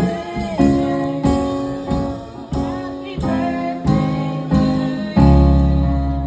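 Music: sustained chords struck afresh on a steady beat, about every two-thirds of a second, with a deep bass note coming in and holding about five seconds in.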